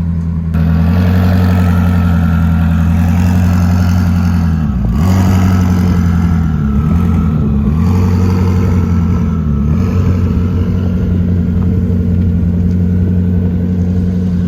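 Koenigsegg twin-turbo V8 idling with a steady low exhaust note. It gets louder about half a second in, and the pitch dips briefly a few times in the middle.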